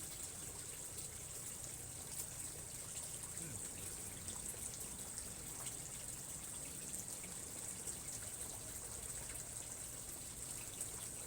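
Steady trickling, running water, with a constant high hiss over it.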